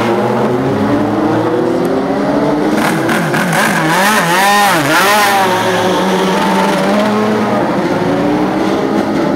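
Engines of several open-wheel single-seater race cars running at low speed as they move slowly past in a queue, their notes overlapping. Between about three and five and a half seconds in, the throttle is blipped several times, the pitch rising and falling quickly.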